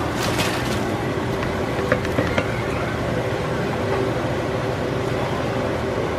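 Chopped cabbage rustling as it is tipped into a stainless steel stockpot during the first second, then a couple of light clicks about two seconds in, over a steady background hum.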